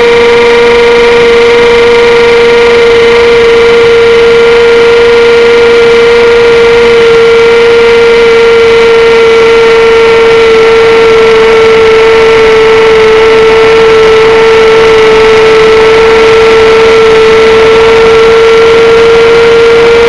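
The electric motor and propeller of an XUAV Skysurfer FPV plane running at steady throttle in flight, heard through the plane's onboard camera microphone: a loud, steady whine over a haze of air noise. Its pitch sags slightly midway and rises again near the end.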